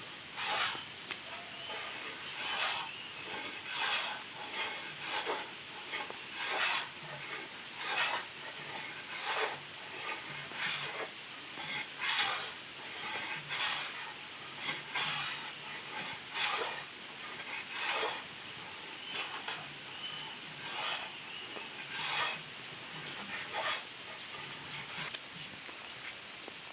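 Traditional manual wood plane shaving wood in steady repeated strokes, each a short rasping swish, about one every second and a half.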